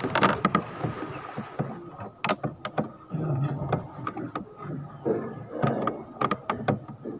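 Irregular clicks and knocks, several a second, with brief low murmurs between them.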